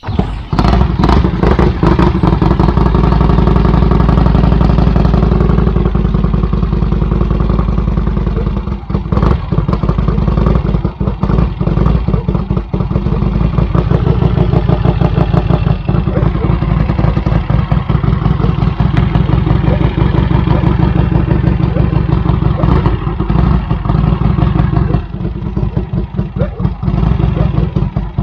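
Vincent 1000cc V-twin motorcycle engine running loud through an open straight-through exhaust as the bike rides along, with a fast, even pulsing beat. The sound drops briefly a few times.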